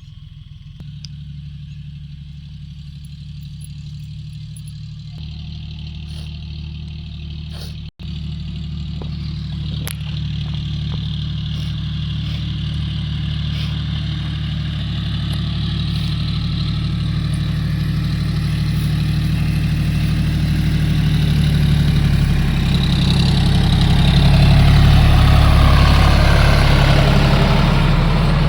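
A vehicle engine running steadily, its low hum growing gradually louder, with a brief break about eight seconds in.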